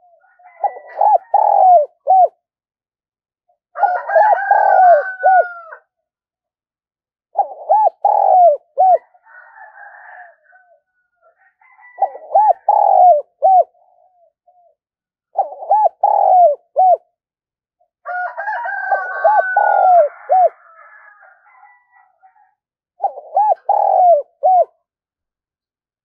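Caged spotted dove cooing: seven short phrases of three or four low coos each, a phrase every three to four seconds. Twice, about four and nineteen seconds in, a higher, drawn-out call overlaps the cooing.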